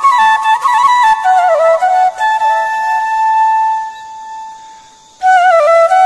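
Background music carrying a flute melody. It settles on one long held note about halfway through, fades nearly away, then starts up again abruptly near the end.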